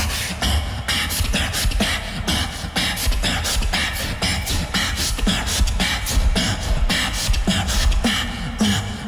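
Solo beatbox performance: a beatboxer's mouth-made kick and snare hits in a fast steady rhythm over a deep, growling bass.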